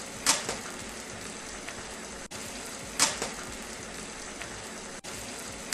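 An egg frying in hot oil in a pan: a steady sizzle, with a louder crackle of spattering oil three times, about every three seconds. The sizzle briefly cuts out twice.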